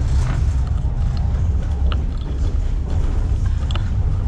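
Steady low rumble of a moving passenger train heard from inside the carriage, with a couple of short clicks about two seconds in and near the end.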